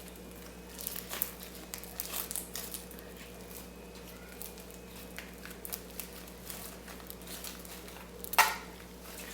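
Hands kneading and squishing butter slime as paint is worked in, giving soft sticky clicks and crackles throughout, with one louder squelch about eight seconds in.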